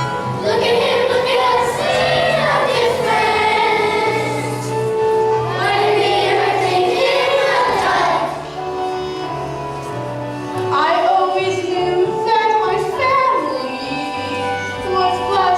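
Children singing a musical-theatre song over instrumental accompaniment, with held chords under the sung lines.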